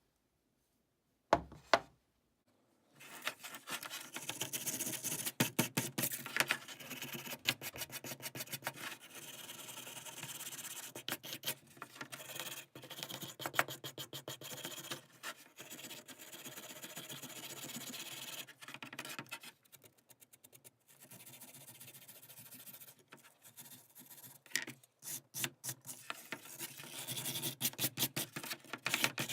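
A sharp knock, then a long run of rapid hand scraping and rubbing strokes on the old rusty pliers, as in scrubbing rust off the metal; the strokes ease off for a moment past the middle and pick up again near the end.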